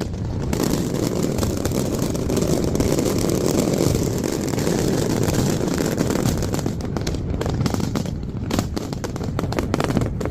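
Fireworks going off in quick succession, many sharp cracks and bangs over a continuous low rumble, sped up to double speed.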